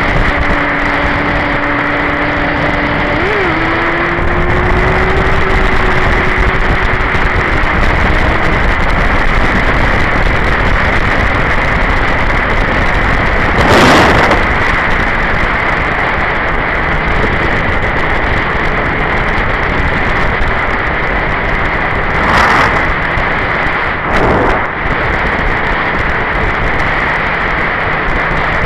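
Honda sportbike riding at speed, heard mostly as heavy wind rush on the camera microphone with the engine note faint beneath it. The engine note steps up about three seconds in, and there are three brief louder gusts of wind noise, one about halfway through and two near the end.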